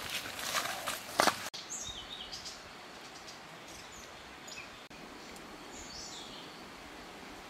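Brush and leaves rustling with footsteps for about the first second and a half, the loudest crackle just before it stops; then a quieter steady outdoor background with small birds chirping now and then.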